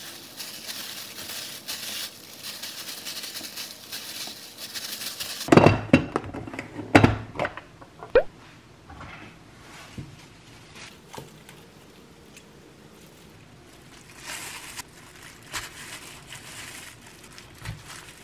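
Thin plastic glove crinkling as a hand massages marinade into sliced pork, followed by several loud knocks about six to eight seconds in. Near the end the plastic glove crinkles again while kimchi leaves are pulled apart.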